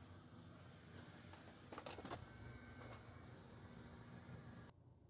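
Near silence: a faint steady hum and hiss of bench equipment, with a faint click about two seconds in, cutting off suddenly near the end.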